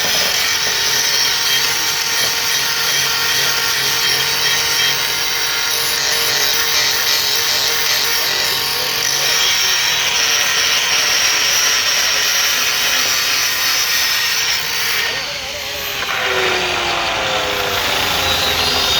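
Large electric grinder grinding a steel blade: a steady loud grinding hiss with a constant motor whine. About fifteen seconds in it eases off briefly, then the whine rises again as it spins back up and the grinding resumes.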